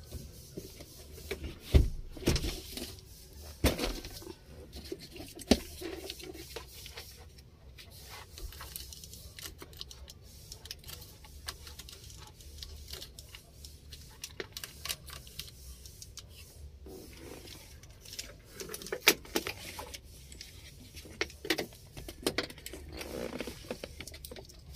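Scattered clicks, taps and rattles of wires and a plastic steering-column switch housing being handled by hand, with a few sharper knocks near the start and again in the second half.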